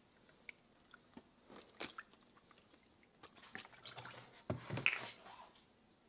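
Faint scattered wet clicks and squishes, thickening into a louder cluster about four to five seconds in, as a purpleheart cutting board shifts in a plastic tub of liquid finish.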